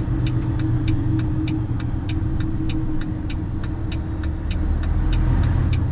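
Turn-signal indicator ticking evenly about three times a second inside the cab of a Volvo FM 340 truck, over the steady low drone of its diesel engine.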